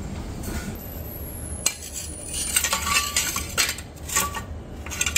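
Metal objects clinking and knocking together several times, starting about a second and a half in, some clinks ringing briefly.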